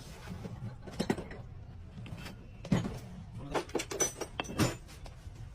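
Irregular knocks and clinks of objects being handled, with a cluster of sharper ones between about three and five seconds in, over a low steady hum.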